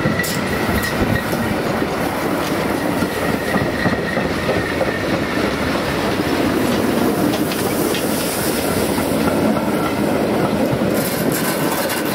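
Train of steam locomotives and vintage passenger carriages rolling steadily past close by, wheels clacking over rail joints.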